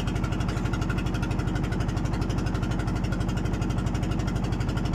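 Boat engine running steadily with a fast, even firing beat.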